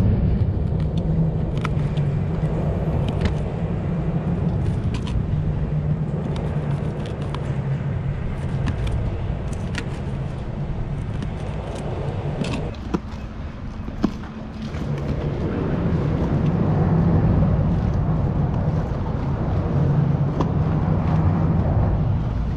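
Steady rumble of car traffic crossing the bridge overhead. It eases off briefly about 13 seconds in and swells again a few seconds later. Scattered light clicks come from a knife chopping baitfish on a cutting board.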